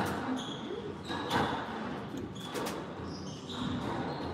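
Squash rally: the ball cracking off rackets and the court walls, with three sharp hits in the first three seconds and short squeaks of court shoes on the hardwood floor between them.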